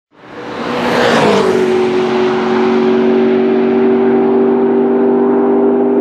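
McLaren MP4-12C's twin-turbo V8 going past at speed: its note drops in pitch about a second in as the car passes, then holds a steady tone as it pulls away down the straight.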